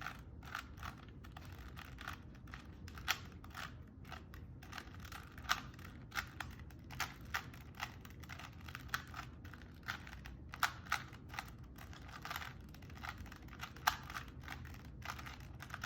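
Rubik's Cube layers being turned by hand: irregular quick clicking of plastic pieces, in clusters with short pauses, over a faint steady low hum.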